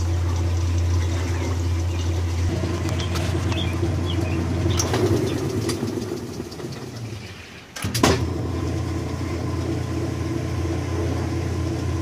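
Kenmore Series 90 top-load washing machine running with a steady low hum. The lid is lifted with a click about five seconds in, the machine's sound dies away while it is open, and the lid slams shut with a loud clack about eight seconds in, after which the hum comes back.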